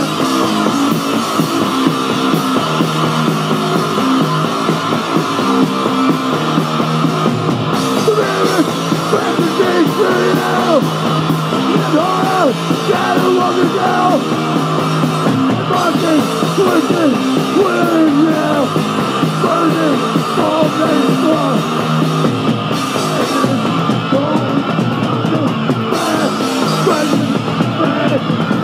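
Crust punk band playing live at full volume: distorted electric guitars and drums, with no break in the din.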